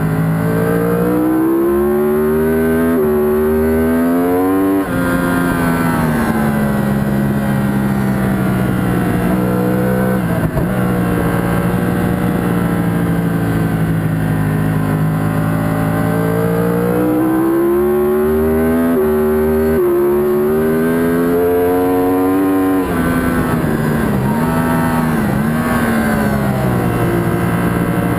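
Yamaha R1 superbike's inline-four engine at race pace, heard on board: its pitch climbs in steps with each upshift over the first few seconds, holds steady and high for about ten seconds, climbs through the gears again, then dips and rises a few times near the end as it brakes and downshifts. A steady rush of wind noise lies under it.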